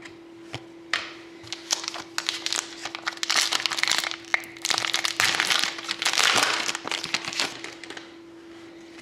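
Plastic foil trading-card pack wrapper crinkling and crackling as it is handled and opened, with sharp clicks of cards being handled, busiest in the middle few seconds.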